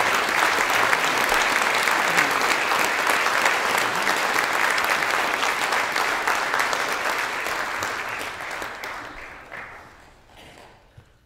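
Congregation clapping, dying away over the last few seconds.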